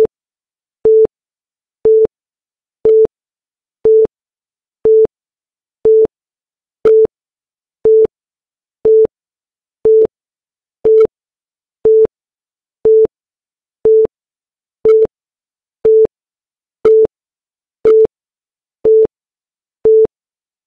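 Short electronic beeps of one steady low-mid pitch, one each second, ticking off the seconds of the chronometer timer.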